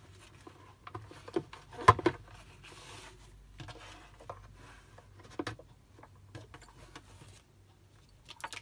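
Irregular plastic clicks and knocks from handling a toy electronic doctor kit and its plug-in instrument on a coiled cord, the sharpest knock about two seconds in, over a faint steady hum.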